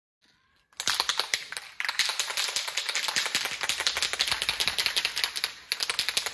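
Aerosol rattle can of spray primer being shaken hard, its mixing ball clicking rapidly in bouts, with two short breaks.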